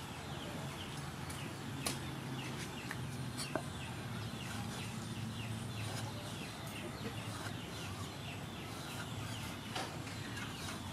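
Birds chirping in the background, many short falling chirps, over a low steady hum. A few soft knocks come from a cleaver slicing through pig ear onto a wooden chopping board.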